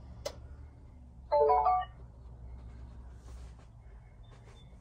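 A short electronic chime of a few quick notes, a little over a second in, preceded by a single sharp click just after the start. A faint steady low hum runs underneath.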